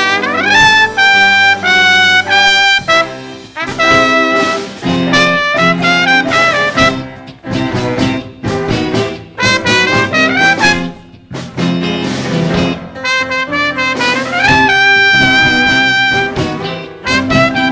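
Instrumental break in a musical-theatre song: a jazzy, swing-style band passage led by brass, with notes that scoop up into held tones near the start and again about fourteen seconds in.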